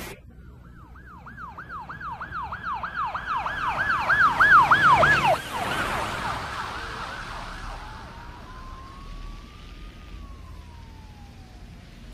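A siren yelping in quick rising-and-falling sweeps, about three a second, growing louder and cutting off about five seconds in. It then sounds one slow wail, rising in pitch and falling again near the end, over a faint hiss.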